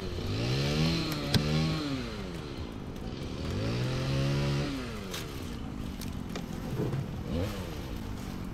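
An engine revving up and easing off in repeated swells of a second or two each, the way a motor vehicle sounds when accelerating through its gears. There is one sharp tap about a second and a half in.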